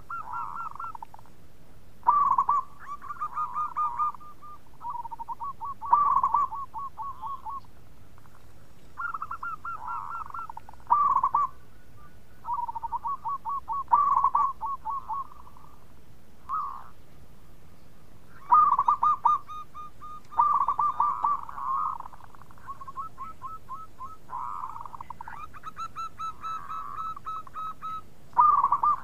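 Zebra dove (perkutut) singing its bekur song: repeated phrases of quick, bubbling coos near one pitch, each opening with a loud note and running on in a rapid string of softer notes, one phrase following another every couple of seconds.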